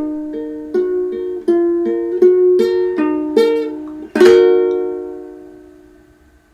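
Acoustic plucked string instrument picking single notes of a slow accompaniment, then one loud final chord about four seconds in that rings out and fades away, closing the song.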